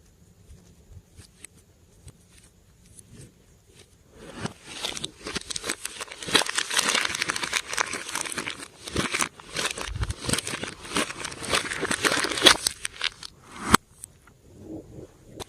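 Slime being squished and kneaded by hand, giving dense crackling and popping clicks. It is faint at first, grows loud about four seconds in, ends with a sharp snap near the end, and then a few quieter squishes follow.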